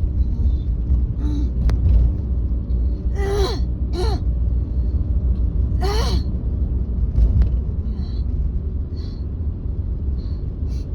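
A woman coughing three times, about three, four and six seconds in: a chesty cough from phlegm she can't clear. Underneath runs the steady low road rumble of a car cabin.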